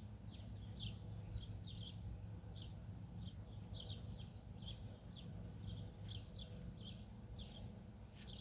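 Small birds chirping, a run of short, high chirps that fall in pitch, about two a second, over a faint low rumble.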